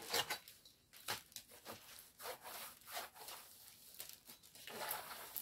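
Faint rubbing and rustling of a diamond painting kit's packaging being handled: a string of short, irregular scrapes.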